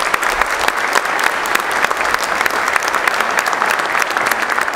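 Audience applauding, a dense steady run of hand claps at the close of a speech.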